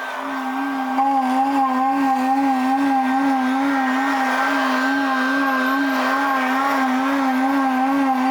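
Compaction roller's engine in sped-up footage, heard as a high, steady machine whine that wavers slightly in pitch. It steps up in loudness about a second in.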